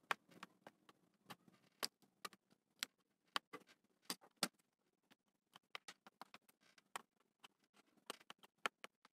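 Faint, irregular sharp clicks and ticks, a few a second, as fingers press and hold a freshly glued plastic patch in the channel of a plastic curtain rail.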